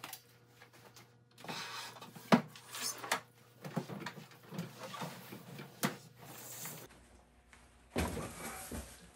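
Handling noises from a wooden, glass-doored printer enclosure cabinet: a series of knocks and clicks, the sharpest about two and a half seconds in. Near the end comes a rougher rustling scrape as a cardboard box is moved.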